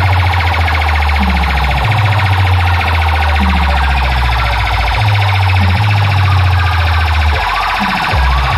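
DJ sound system playing a loud competition track. A fast, warbling siren-like tone sits over deep, heavy bass notes, with repeated downward-sliding bass drops.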